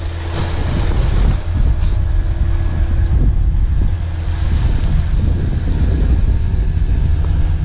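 Wind rumbling on the microphone over small waves washing against breakwater rocks, with the steady drone of a motorized fishing boat's engine running offshore.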